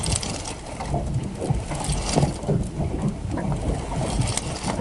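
Water lapping against the hull of a small fishing boat, with a low wind rumble and scattered short knocks and clicks as a fish is played and reeled in on a bent rod.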